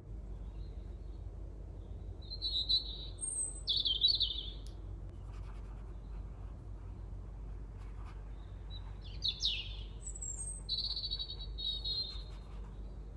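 Small birds chirping in two short runs of song, about two seconds in and again about nine seconds in, over a steady low hum.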